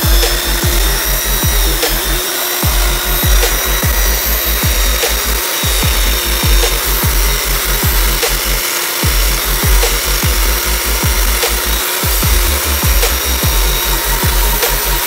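Portable belt sander running steadily while a wooden knife handle is pressed against the moving belt and sanded. Background music with a steady bass beat plays underneath.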